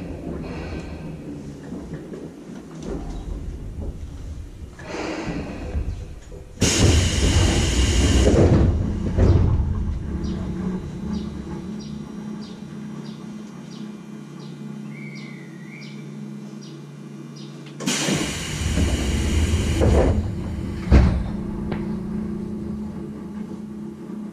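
Tobu 10030-series train standing at a station. Its pneumatic passenger doors open with a rush of air about seven seconds in and close with another rush of air around eighteen seconds, followed by a sharp thud as they shut. Under this runs a steady hum from the train's equipment.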